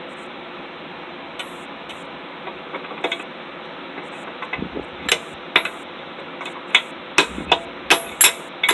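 Hammer striking hot steel on an anvil, a few light taps at first, then regular ringing blows about two a second from about five seconds in, getting louder, over a steady hiss.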